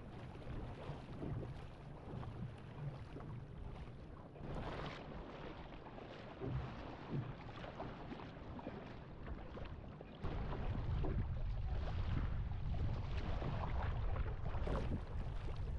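Paddle strokes splashing in choppy seawater beside a canoe-surfski hull, with water rushing past and wind buffeting the microphone. About ten seconds in, the wind rumble abruptly grows stronger.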